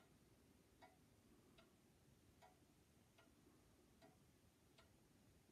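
Warmink pendulum wall clock ticking faintly and evenly, about one tick every 0.8 seconds.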